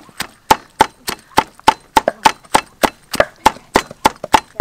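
Steel cleaver chopping dried red chillies on a thick round wooden chopping board: sharp knocks of the blade striking the wood, about three a second in a steady rhythm.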